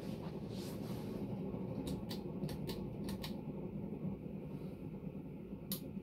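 Berni Panama-copy ceiling fan running on high with a steady hum. A run of light clicks comes in the middle, and a sharper click near the end as the pull-chain switch turns the fan off.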